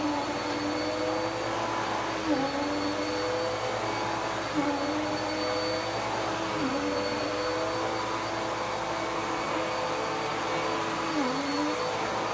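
Dirt Devil Power Max Pet upright vacuum cleaner running steadily on carpet. Its motor tone dips briefly in pitch four times as the load on it changes.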